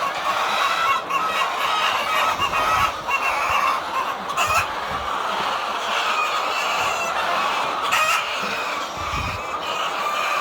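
A flock of laying hens clucking and cackling continuously, many calls overlapping, with a few sharp taps.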